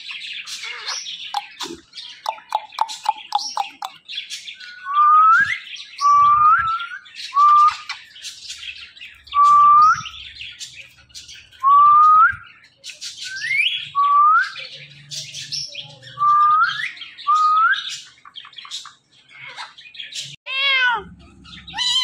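Rose-ringed (ringneck) parakeets calling: squawks and a quick run of short chirps, then a series of about nine loud, short rising whistled calls, roughly one every second or two.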